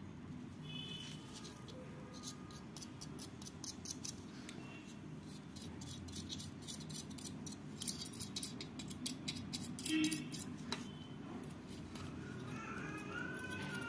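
A flat paintbrush scrubbing over a battery charger's printed circuit board: rapid scratchy strokes of bristles on the board, busiest and loudest in the middle stretch.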